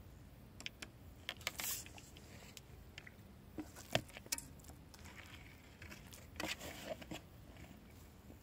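Scattered light clicks and short crinkly rustles of small handling noises, the loudest a sharp click about four seconds in.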